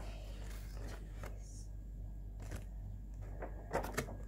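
Handling of a cardboard doughnut box as it is moved and opened: a few scattered knocks and rustles, then a quick cluster of them near the end.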